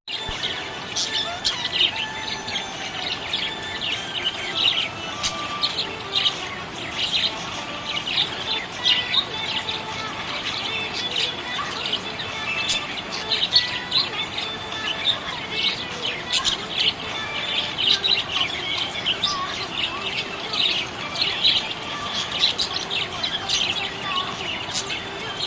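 Budgerigars chirping continuously: a dense run of quick, high chirps and twitters.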